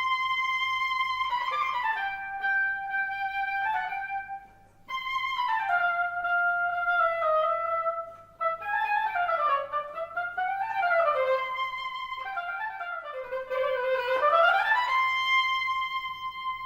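Oboe playing a slow melody of slurred notes that slide up and down between one another, opening and closing on a long held note, with two brief breaks for breath.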